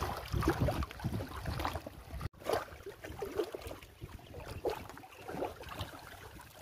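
Lake water splashing and sloshing in short irregular splashes as a sack is worked in the shallows against rocks. About two seconds in the sound cuts off sharply, then quieter sloshing, squelching and dripping follow as wet green algae, the bait, is handled and squeezed in a plastic tub.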